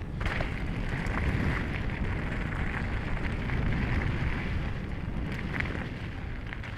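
Mountain bike tyres rolling fast over a gravel forest trail, with wind buffeting the action camera's microphone as a steady low rumble and hiss. A few small ticks from stones and bike rattle come through.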